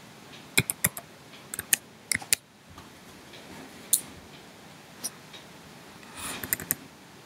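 Computer keyboard keys tapped one at a time as a phone number is typed in: a dozen or so separate clicks at an uneven pace, some in quick pairs, with a short run of taps near the end.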